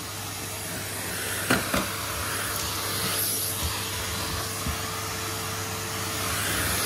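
Vacuum cleaner running with a steady hiss and hum. Two sharp clicks come about a second and a half in, and a few lighter knocks follow later.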